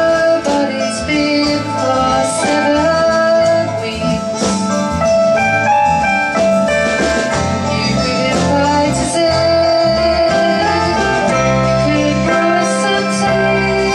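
A woman singing a folk song while playing an acoustic guitar, with another musician accompanying her.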